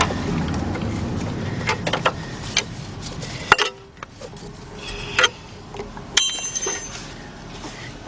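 Hand tools clinking and knocking on metal in a car's engine bay as a socket and swivel work the alternator adjusting bolt to slacken the drive belt. The knocks come at irregular moments, and a quick run of ringing clicks comes about six seconds in.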